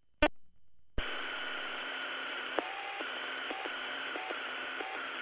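Police radio scanner: a short squelch click, then about a second in an open channel of steady static hiss with a few faint short blips in it.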